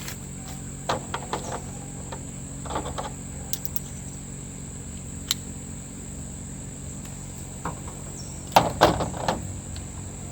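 Scattered light clicks and knocks of small parts and tools being handled during chainsaw recoil starter work, with a louder cluster of knocks near the end, over a steady high insect drone of crickets.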